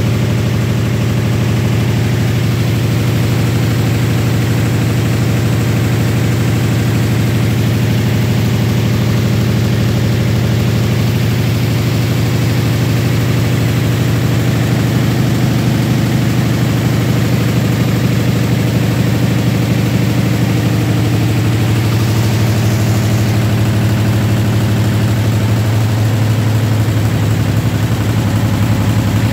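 YBD166 66-needle quilting embroidery machine running, stitching in a rapid, even rhythm over a steady low hum.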